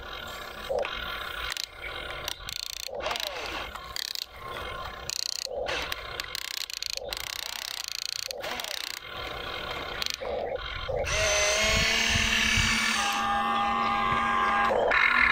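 RC excavator's electric motors whining in short stop-start bursts as the bucket digs, each pitch sliding up or down, with sharp clicks between. From about eleven seconds in, a longer, louder steady whine as the boom lifts and the cab swings toward the dump truck.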